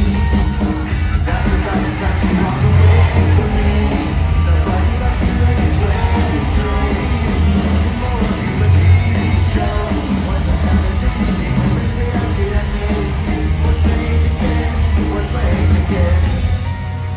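Live rock band playing loudly with sung vocals, heard from among a stadium audience, with the crowd yelling and singing along.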